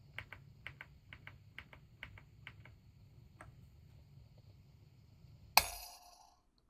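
Keys of an Akko 5098B mechanical keyboard being pressed one at a time, each stroke a crisp click, mostly in quick pairs of press and release. About five and a half seconds in there is one much louder sharp clack that rings briefly and dies away.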